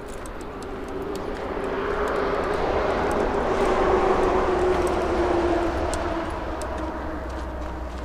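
A passing engine: a steady hum that swells to a peak about halfway through, then fades as its pitch drops slightly. Faint footsteps crunch on gravel.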